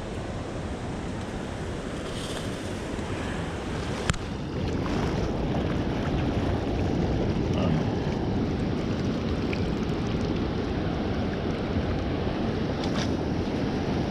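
Ocean surf rushing and washing around the legs of someone wading in the shallows, getting a little louder after about four and a half seconds. A single sharp click about four seconds in.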